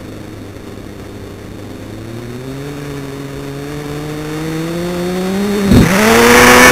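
Radio-controlled car's motor speeding up, its pitch and loudness rising steadily as it comes closer. There is a sharp thump near the end, and then the car is loud and close.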